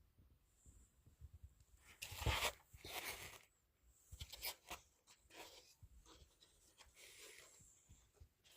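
Rustling and scraping handling noises in short irregular bursts, the loudest about two to three seconds in.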